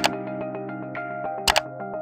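Outro background music with sustained notes, overlaid by sharp mouse-click sound effects: one click at the start and a quick double click about one and a half seconds in.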